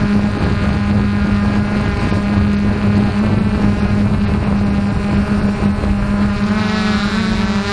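An engine running steadily at a constant pitch, with wind noise on the microphone; a second, wavering tone joins near the end.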